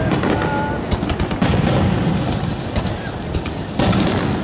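Aerial firework shells bursting in quick succession, a continuous run of booms and crackles over a low rumble, with a brief whistle about half a second in.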